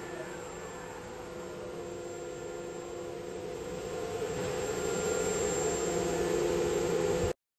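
A 4-axis CNC wood router's swing-head spindle running with a steady whine while its tilted cutter machines a stacked wood block. The cutting noise grows louder from about four seconds in.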